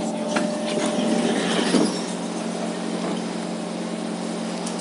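Steady electrical hum of an MRT train standing at the platform, with a few sharp clicks and rattles in the first two seconds.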